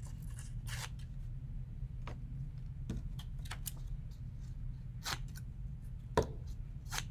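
Scissors snipping through paper cutouts in short, irregular single snips, roughly one a second, over a steady low hum.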